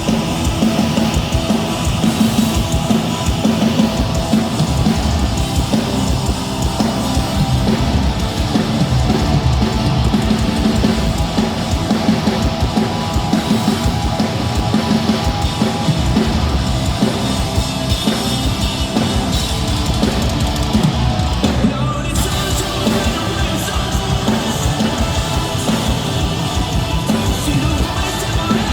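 A rock band playing live at full volume, a heavy, driving section with the drum kit prominent and no lyrics picked out.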